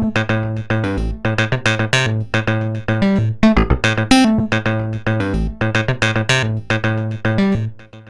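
Synthesizer playing a fast run of short, bright notes over a held bass note, fading out near the end.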